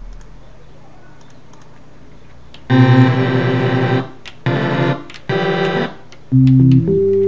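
Synthesized keyboard tones played from a homemade push-button MIDI keyboard: after a few quiet seconds with faint clicks, a held chord sounds about three seconds in, followed by three shorter chords, the last stepping up in pitch.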